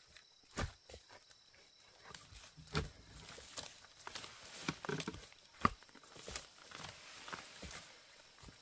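Scattered light knocks and rustling at irregular intervals, with a few sharper knocks standing out.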